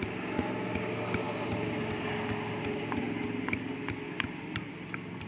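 Stone pestle knocking in a small stone mortar while crushing, a scatter of sharp irregular knocks, over a steady hum from an unseen motor.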